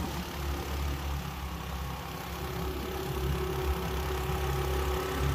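Engine of a vehicle being driven along a road, a steady low hum without change in speed.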